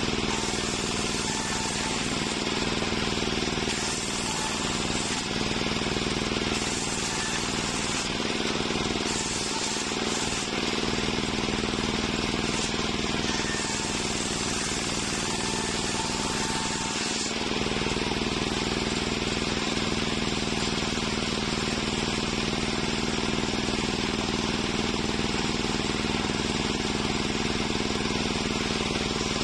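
Large table-mounted circular saw running steadily with a constant machine hum, its blade ripping through planks of waru wood with a broad hiss that shifts as the cuts go in and ease off.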